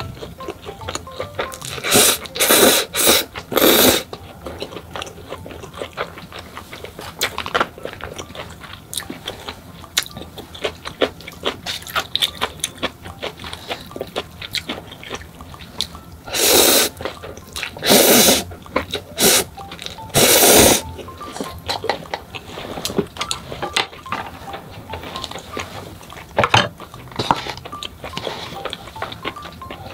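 Instant noodles slurped close to the microphone in several loud half-second bursts, in a group a couple of seconds in and another past the middle, with wet chewing clicks in between.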